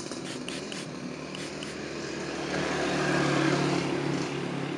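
A motor vehicle passing by, its engine growing louder to a peak about three seconds in and then fading. A few short squirts of a trigger spray bottle come in the first second.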